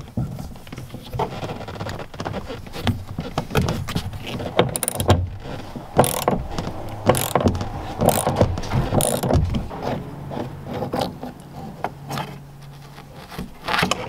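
Ratchet wrench with a T50 Torx bit clicking in repeated strokes as it undoes a seat-belt anchor bolt, with the pawl ratcheting on each back-swing.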